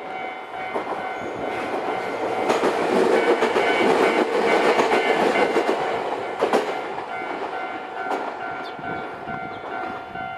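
A Nankai electric train passing over a level crossing, its wheels clacking over the rail joints, loudest in the middle and fading away near the end. Under it the crossing's warning bell keeps ringing in steady high tones.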